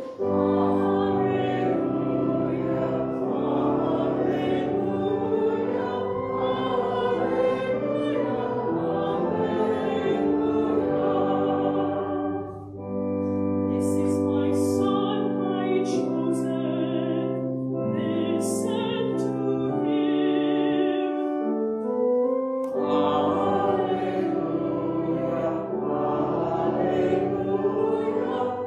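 A congregation singing a hymn-like Gospel acclamation with keyboard accompaniment, in phrases with a short break about halfway through.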